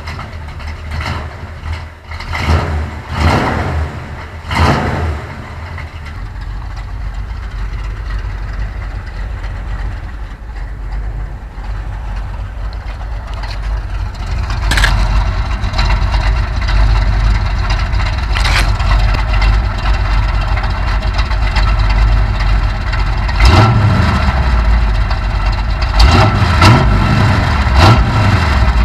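Chevrolet pickup's engine idling through its exhaust, before the exhaust modifications. It gets louder about halfway through, and there are a few short revs near the end.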